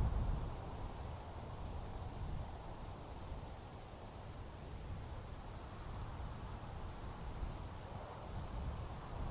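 Outdoor summer grassland ambience: faint, high insect chirps every second or so over a low, uneven rumble.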